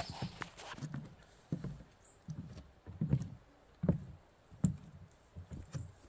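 Footsteps of a person walking through thick brush: a dull thump about every three quarters of a second, with a few sharp clicks and rustles between the steps.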